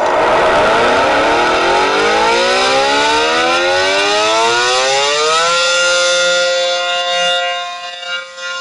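Outdoor warning siren winding up: its pitch rises steadily for about five seconds, then holds at one steady tone, with the level wavering near the end. It is played back from a phone.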